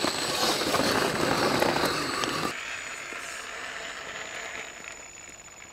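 Radio-controlled scale off-road truck crawling over rocks: a loud crackling crunch of tyres and chassis on stone for about two and a half seconds. Then it turns quieter, with a faint high, steady whine.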